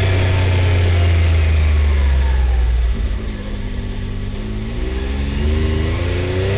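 Can-Am Maverick X3's three-cylinder turbo engine driving along, easing off about three seconds in as the machine slows through a turn, then accelerating again with its pitch rising.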